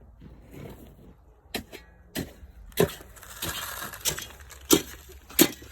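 Crusted ice being broken up, six sharp cracks about every half second, with a brief stretch of scraping and crunching in the middle.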